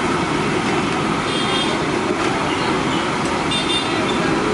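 Oil sizzling steadily in a large kadai as masala vadas deep-fry, with street traffic noise behind it.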